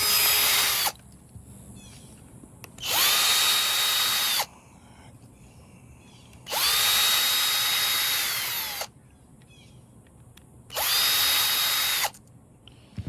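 Electric drill run in four bursts a few seconds apart, the motor spinning up to a steady whine, holding, then winding down each time.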